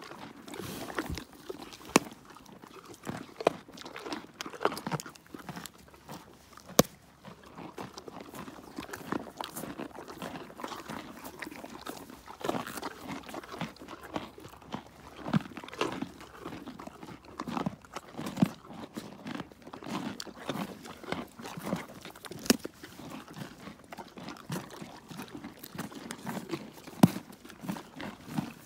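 An equine (pony or donkey) crunching and chewing raw carrots close to the microphone: irregular crisp crunches with a few sharper snaps as pieces break.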